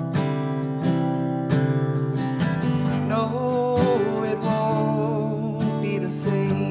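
Live acoustic guitar music from a folk song: a steady strum with a wavering melody line over it in the middle.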